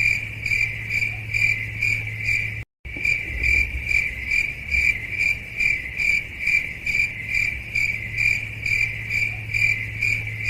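Cricket chirping in an even rhythm, about two chirps a second, over a steady low hum. The sound cuts out completely for a moment nearly three seconds in, then resumes unchanged.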